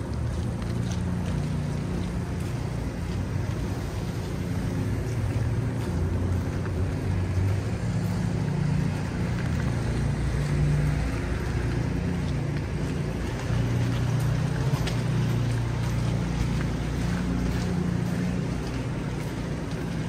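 Steady low rumble of vehicle engines and street traffic, with some wind noise.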